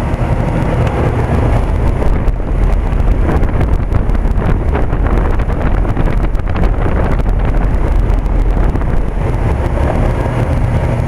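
Outdoor condensing unit of a 1990 Bryant 5-ton straight-cool central air conditioner running steadily: a low hum under an even rush of fan air, with no change throughout.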